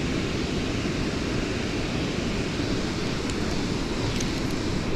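Steady rushing of fast-flowing river water. A couple of faint ticks from the spinning reel being wound come near the end.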